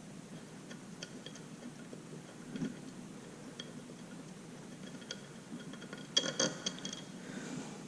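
Socket ratchet clicking in short, scattered runs while backing out the already loosened connecting rod cap bolts of a single-cylinder engine, with a louder cluster of metal clicks and clinks about six seconds in.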